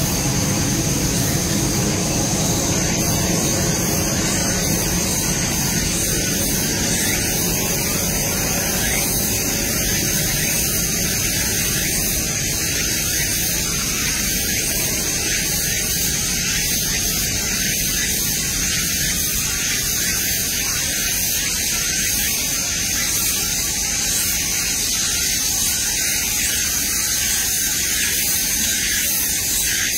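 A steady rushing hiss with a thin high whine over it.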